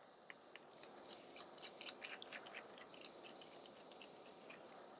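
Small precision screwdriver unscrewing tiny M2.5 screws from a plate: a faint, irregular run of light clicks and ticks.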